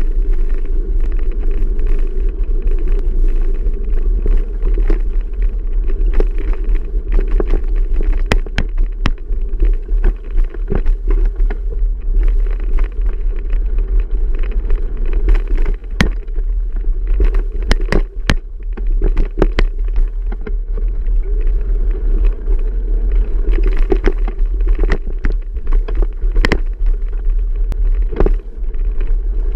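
Riding noise from a bicycle ride: a steady low wind rumble on the microphone with scattered sharp clicks and rattles throughout.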